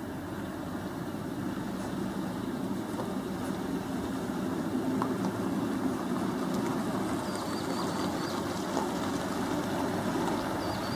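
Diesel engines of heavy dump trucks running at low speed as they drive past over a rough dirt road, a steady low rumble that grows a little louder as a Sinotruk HOWO tipper draws close.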